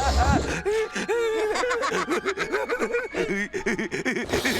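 Cartoon character laughing in quick, repeated cackles, with a low thump right at the start.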